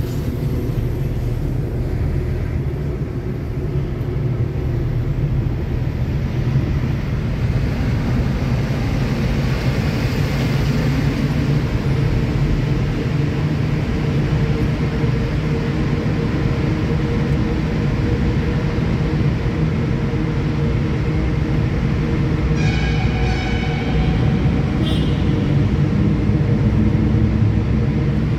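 Steady road and engine rumble of a car driving, heard from inside the cabin. A brief run of higher-pitched pulses comes about 23 seconds in.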